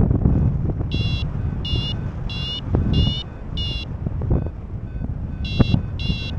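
Variometer app on a phone giving its climb tone while paragliding: five short high beeps in quick succession, a pause, then two more near the end. The beeping signals that the glider is climbing in lift. Wind rushes on the microphone underneath.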